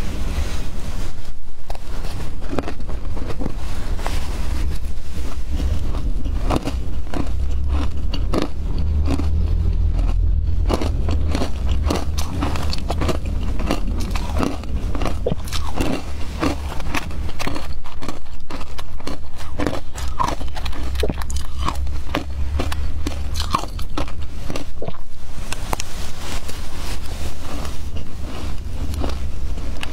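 Spoonfuls of shaved ice topped with milk powder being bitten and chewed: a dense, irregular run of crisp crunches over a low, steady rumble.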